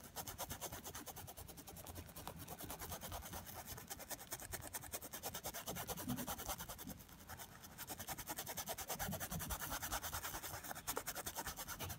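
Paintbrush scrubbing fabric paint into cloth in fast, regular short strokes: a faint, rapid scratching that pauses briefly twice.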